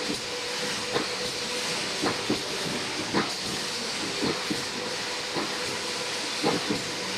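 Fully automatic CNC wire mesh welding machine running: a steady hiss under a faint hum, with sharp clunks of the machine's cycling, irregularly spaced about once a second.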